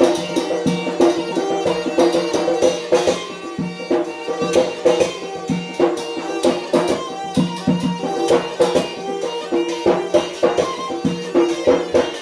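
Yemeni dance music: a mizmar reed pipe plays a reedy melody over a fast, steady drum beat.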